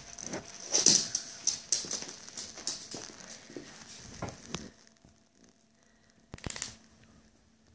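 Miniature pinschers scrambling about on a fabric sofa: quick scuffing of paws and rustling of a blanket in rapid bursts, busiest in the first few seconds, then quiet, with one short scuffle near the end.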